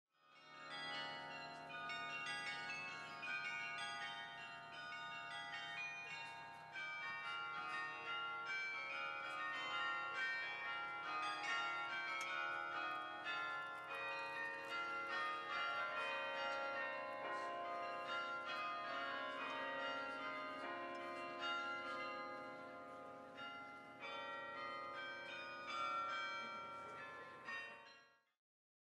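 A carillon playing: many tuned bells struck in quick succession, their notes overlapping and ringing on. The bells fade in at the start and fade out near the end.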